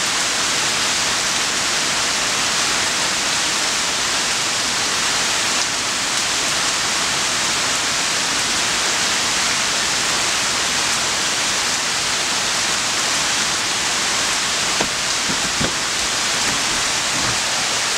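Heavy rain falling steadily on leafy trees and grass, a dense even hiss. A few sharper drop ticks come through near the end.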